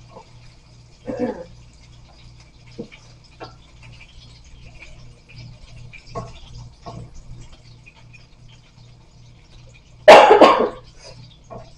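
A dog barks, a short bark about a second in and a louder one just after ten seconds. Between them come a few light knocks from pots at the stove, over a faint low pulsing hum.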